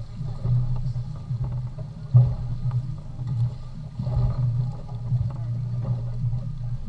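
Fishing boat's engine running steadily, a low, even hum with faint knocks and water noise over it.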